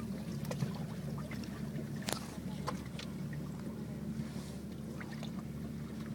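Boat's engine idling with a steady low hum, with scattered small clicks and taps over it.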